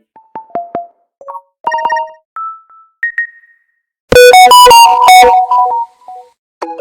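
Samsung Galaxy S21 notification tones from the Galaxy default theme, played one after another: a series of short electronic chimes and blips, each followed by a brief silence. About four seconds in comes a louder, brighter run of quick notes.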